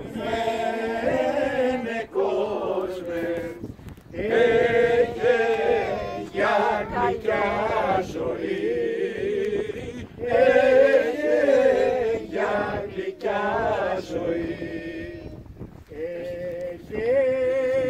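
A small group of voices singing together without instruments, a slow song in long held phrases with brief pauses between them.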